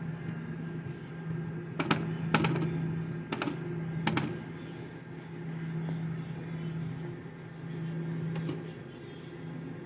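A video slot machine with a steady low hum of game sound that swells and fades. Four sharp clicks come between about two and four seconds in as its play button is struck, and a faint one comes near the end.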